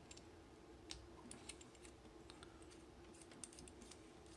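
Faint, scattered clicks and taps of hands working a spectrum analyzer setup, over a faint steady hum.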